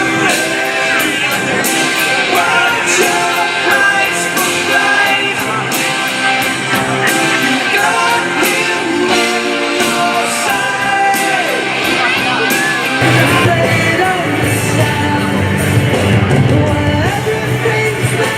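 Rock music with a singer, played loud, the bass and drums coming in heavier about thirteen seconds in.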